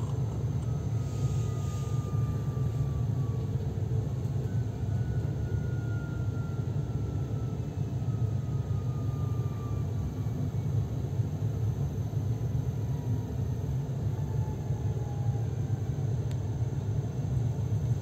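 Steady low rumble heard inside a moving passenger train carriage, with a faint whine that slides down in pitch now and then.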